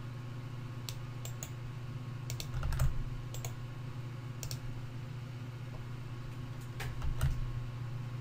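Scattered computer keyboard key presses and clicks, a few at a time with short clusters about two and a half and seven seconds in, over a steady low electrical hum.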